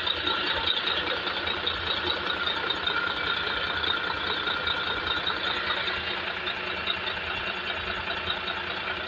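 Freshly overhauled Mitsubishi Fuso common-rail diesel engine running steadily on its test run, with an even, rapid clatter.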